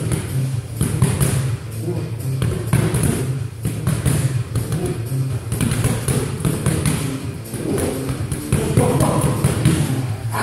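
Background music with a steady, repeating bass line, over scattered thuds and taps of gloved punches and footsteps on foam mats.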